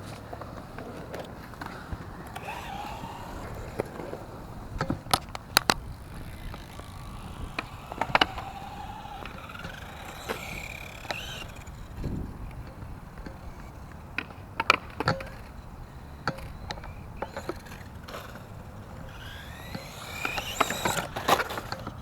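S912 RC truggy's electric motor whining up and down in pitch as it speeds up and slows, with tyres on smooth concrete. Several sharp knocks and clatters come as it tumbles and hits the concrete.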